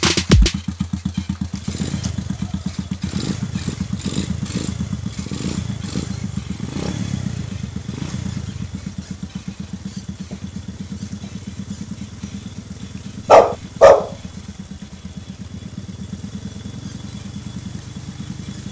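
Pit bike's single-cylinder engine running at low revs with a steady putter, a little quieter in the second half. Two short loud sounds about half a second apart break in a little past the middle.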